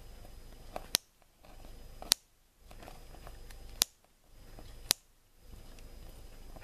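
Faint handling of soft polymer clay being pressed into shape by fingertips, over a low steady hiss. Four sharp clicks, each followed by a split second of dead silence.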